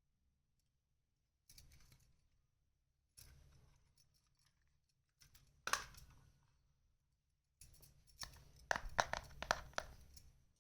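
Toy kitchen set pieces and their packaging being handled close to the microphone: brief rustling, one sharp click, then a longer run of quick clicks and taps of small hard pieces near the end.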